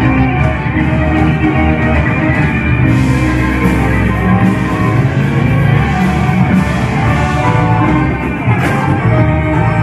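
Live band playing loud amplified music through a PA, with electric guitars, bass and drums and a heavy low end.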